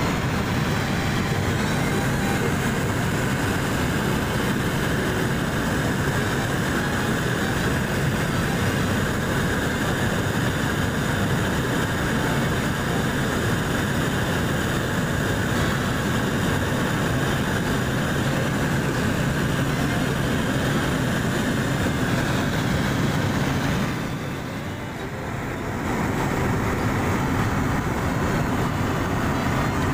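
Steady drone of a small plane's engine heard inside the cabin in flight. Near the end it briefly drops in level for a couple of seconds, then comes back.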